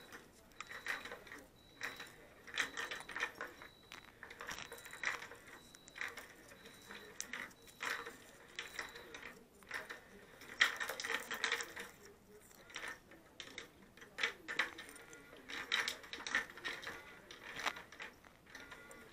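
A round plastic cat toy clicking and rattling irregularly as a cat paws at it, with a faint steady high tone through roughly the first half.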